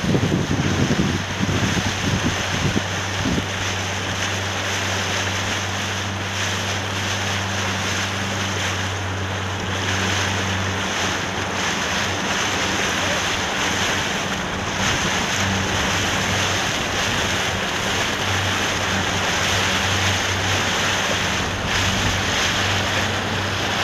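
Wind buffeting the microphone over the rush and splash of open water, with a low steady engine hum underneath. The hum drops away about halfway through and returns about three-quarters of the way in.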